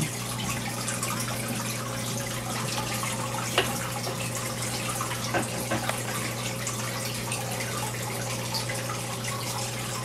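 Aquarium filter running: a steady trickle and bubbling of water into the tank over a low steady hum, with a few faint clicks, the clearest about three and a half seconds in.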